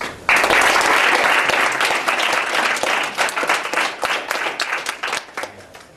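Audience applauding, starting suddenly, dense at first, then thinning to scattered claps and dying away near the end.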